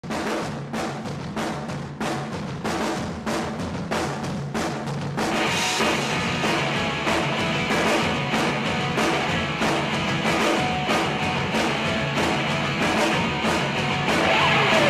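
Background music with a steady drum beat: drums alone at first, then a fuller band joins about five seconds in and the music slowly gets louder.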